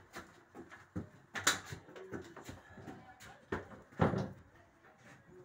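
A few sharp knocks and clunks over a faint background rumble, the two loudest about two and a half seconds apart.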